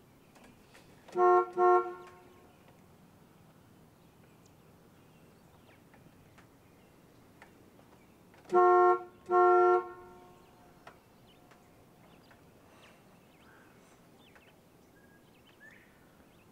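School bus horn honked twice in quick short toots, then twice again with longer blasts several seconds later, as a call to anyone at the house.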